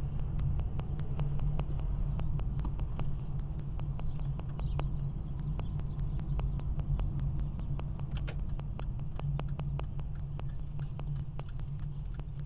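Car driving along, heard from inside: a steady low rumble of engine and road noise, with an even ticking of about five clicks a second running through it.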